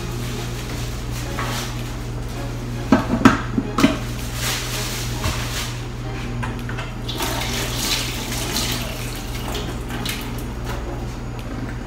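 Dishes being washed by hand in a kitchen sink: tap water running and splashing, with plates and cutlery clinking against each other and the sink, loudest in a quick cluster of clinks about three to four seconds in. A steady low hum runs underneath.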